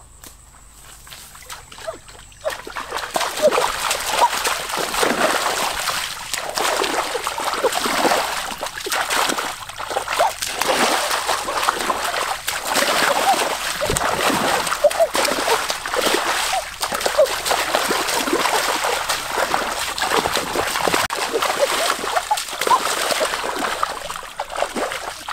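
Water splashing and sloshing continuously, starting about two and a half seconds in.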